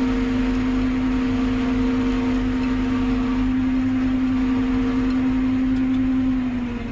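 Forage harvester running under load while cutting maize for silage, heard from inside the cab: a steady mechanical drone with a strong hum. It drops a little in pitch and level near the end.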